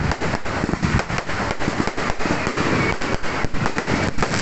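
Firecrackers going off in a rapid, unbroken crackle of many loud bangs.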